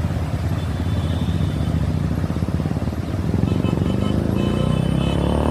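A vehicle engine running, its pitch rising about three and a half seconds in as it revs.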